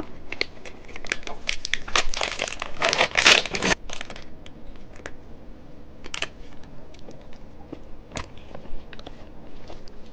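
Plastic wrapper of a cheese stick snack crinkling and tearing as it is opened. The crackling is dense for about the first four seconds, then thins to scattered small crackles.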